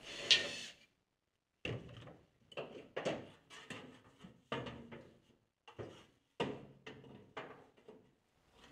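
Bent sheet-steel dashboard panel being fitted into a stripped car shell: a string of irregular knocks and scrapes as the panel bumps and slides against the metal body.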